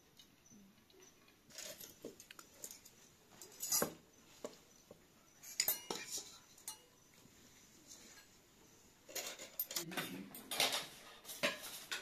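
Metal spoon scraping and clinking against a cooking pot and a glass serving dish as cooked rice is spooned out, in scattered strokes with a lull in the middle and a busier run near the end.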